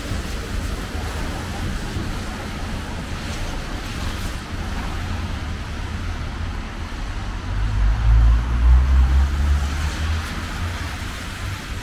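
Street traffic on rain-wet roads: steady tyre hiss and low engine rumble, with a louder low rumble swelling from about eight to ten seconds in.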